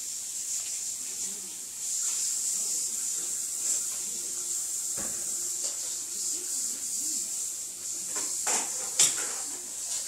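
Shiba Inu rolling and wriggling on her back on carpet: her fur scrapes against the pile in a steady rubbing hiss that swells and fades with each wriggle. A few soft knocks, and a sharp click about nine seconds in.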